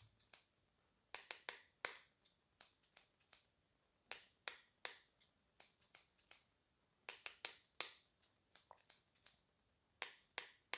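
A pair of scissors clicking its blades shut and tapping lightly on an ink-eraser pen, played as a simple rhythm of short, sharp clicks in small groups of three or four.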